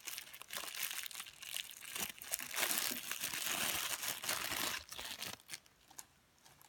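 Plastic packaging crinkling and rustling as it is handled, a dense run of crackles that dies away about five and a half seconds in.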